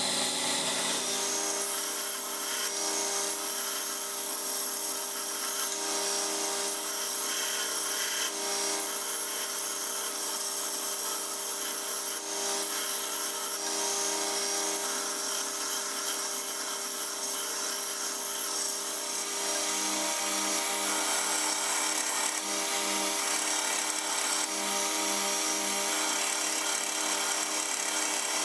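2x72 belt grinder running steadily while the steel jaws of a hand vise are pressed against the belt and ground back to bare metal. The grinder gives a steady hum under a hiss of abrasive on steel.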